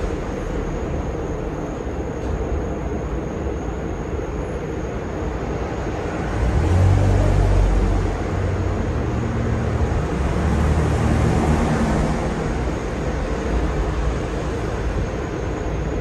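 44-inch Hunter Dominion ceiling fan running: a steady whir of motor and moving air, with a low rumble that swells twice.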